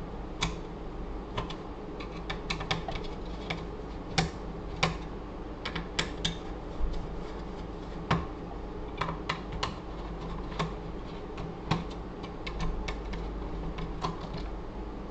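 Irregular light clicks and taps of hands and a tool working on metal and plastic parts inside a Lenovo desktop PC case, as the CPU heatsink is taken off the motherboard.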